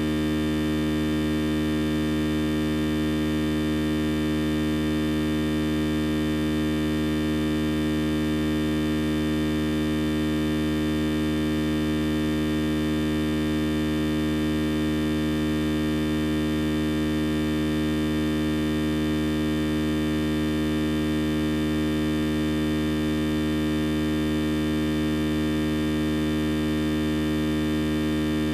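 A loud, steady electrical hum with many overtones, unchanging throughout.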